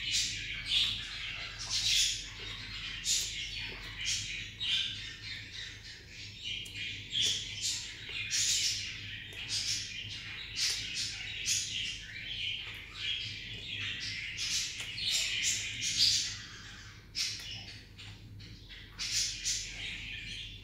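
Small birds chirping and calling busily in quick, overlapping short calls, with a low steady hum underneath.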